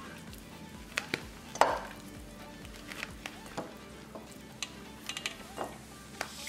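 Pieces of raw lamb being dropped by hand into a stainless steel colander: scattered wet thuds and light metallic knocks, the loudest about one and a half seconds in.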